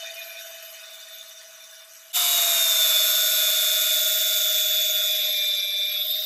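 Angle grinder running with its disc cutting into the rusted cast-iron head of an antique sewing machine: a steady high whine. It fades over the first two seconds, then about two seconds in comes back abruptly much louder, its pitch dropping slightly under load.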